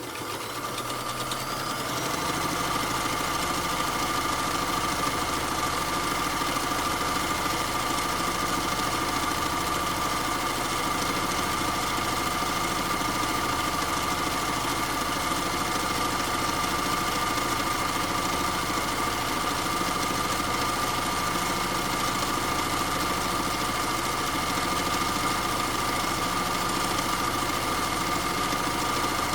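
Vintage Kenmore sewing machine running continuously while stitching heavy canvas straps. Its motor and needle mechanism come up to speed over the first two seconds, then run steadily with a constant whine.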